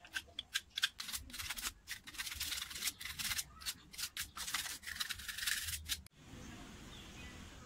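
A utility cutter blade scraping a kamagong wood spoon in quick, short scratchy strokes, then longer strokes. The scraping stops abruptly about six seconds in, leaving a faint steady hiss.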